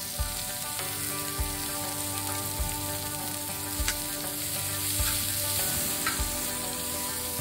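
Onion and spring onion sizzling as they fry in sauce in a pan over a wood fire. A soft low thump sounds about once a second underneath.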